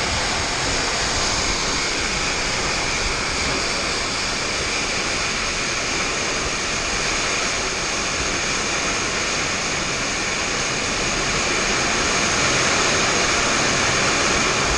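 Hailstorm with heavy rain, falling as a steady, even hiss that grows a little louder near the end.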